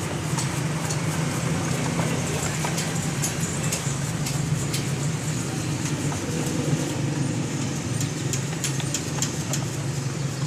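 Steady low mechanical hum, with scattered short light clicks and clinks.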